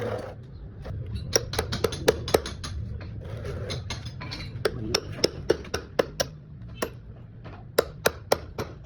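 Sharp hard taps and clicks, like a tool striking or prying at a hard object. They come in three quick bursts of several strokes each.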